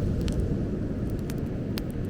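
Wood bonfire crackling, with several sharp pops scattered through, over a steady low rumble.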